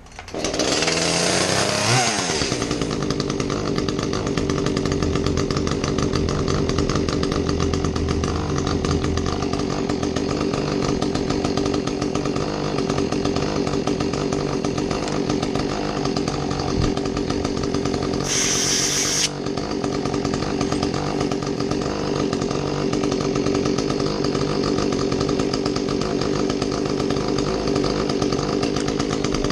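Echo CS310 chainsaw's small two-stroke engine catching on a pull start, running fast for about two seconds with its pitch dropping, then settling into a steady idle: the test run after a full tune-up. A brief hiss comes about two-thirds of the way through.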